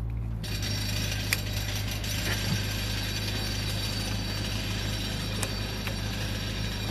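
Wiring connectors being pushed back onto an engine-mounted ECU, a few faint clicks. Under them, a steady background noise with a low hum.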